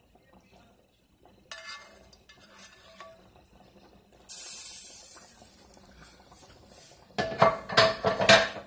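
A spatula scraping the inside of a nonstick frying pan as the last of the pan sauce is poured out, with a brief hiss about halfway through. Near the end comes a loud clatter of the metal pan and utensils knocking as the pan is lifted away.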